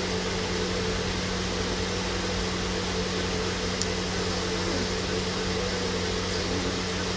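Steady hum and even hiss of room air conditioning running, with no distinct knocks or clicks.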